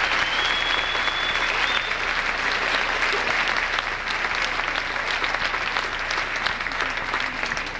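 Audience applauding, with a brief high whistle near the start; the clapping thins out toward the end.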